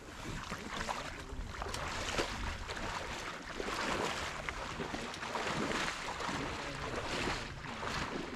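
Water sloshing and splashing in repeated swishes every second or two, with a low wind rumble on the microphone.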